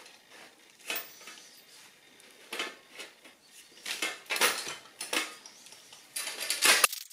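Metal nuts and washers clinking and scraping as they are handled and fitted onto bolts through wooden jack-stand blocks, in irregular short bursts.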